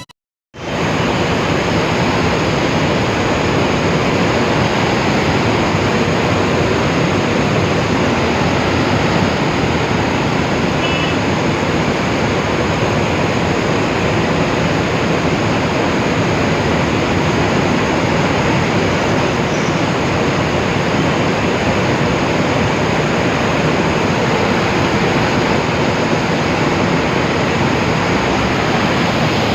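Waterfall: a loud, steady rush of falling water that starts about half a second in.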